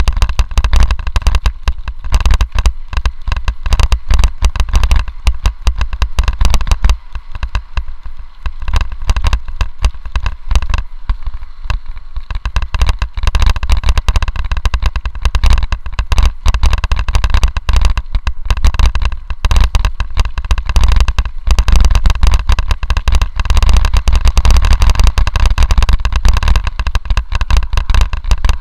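Continuous rattling and knocking from a bike-mounted camera as the bike rides over gravel and dirt, over a heavy rumble of wind and ground noise.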